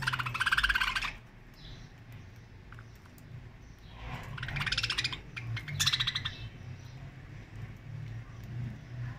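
Budgerigars giving bursts of fast, buzzy chattering calls: one right at the start, then two more about four and six seconds in.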